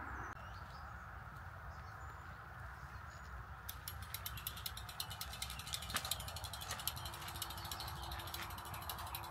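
Gravel bike's rear freehub ticking rapidly as the wheel freewheels, starting a little over a third of the way in, over a steady low rumble.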